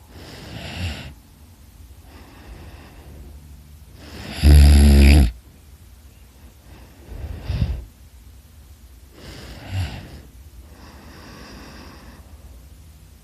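A person snoring in sleep: a snore or noisy breath every few seconds, the loudest about four and a half seconds in, with quieter breathing sounds between them.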